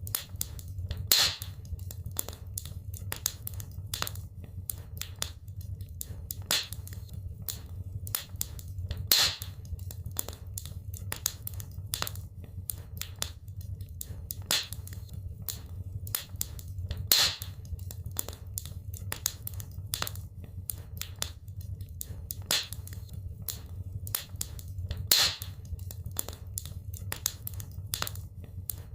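Wood fire crackling in a fireplace: a dense run of sharp snaps and pops over a steady low rumble, with a louder pop about every eight seconds.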